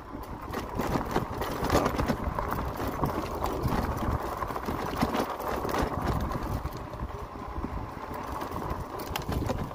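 Fat-tyre electric bike rolling over a loose gravel and dirt track: its 4-inch tyres crunch over stones, with frequent small knocks and rattles.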